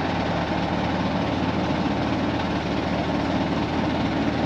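Telehandler's diesel engine running steadily as its hydraulic boom lifts a heavy load.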